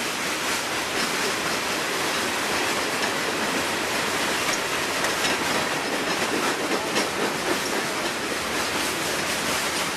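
Norfolk Southern freight train's cars, including loaded ballast-rock hoppers, rolling past: a steady run of wheels on rail with a few light clicks.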